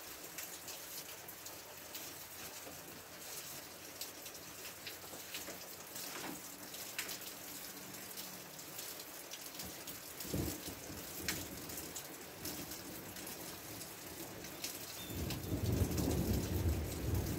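Steady rain shower falling, a continuous hiss with sharp ticks of single drops landing close by. A low rumble swells in about fifteen seconds in and carries on to the end.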